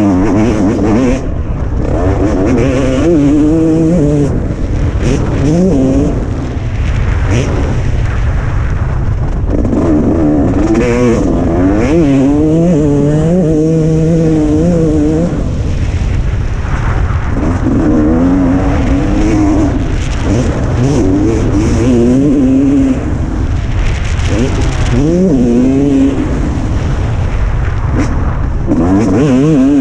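Motocross bike engine riding a lap, the revs rising and dropping back over and over as the throttle is worked.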